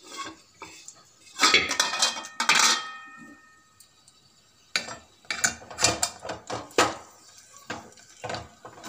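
Metal clattering and clinking against an aluminium pot holding a tempering of oil, curry leaves and dried red chillies. There is a loud clatter with a brief ring about a second and a half in, then a run of sharp knocks from about five seconds on.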